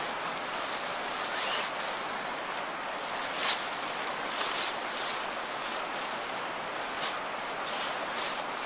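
A plastic tarpaulin rustling and crackling in several short bursts as it is pulled and bunched up, the loudest about three and a half seconds in, over a steady rushing hiss.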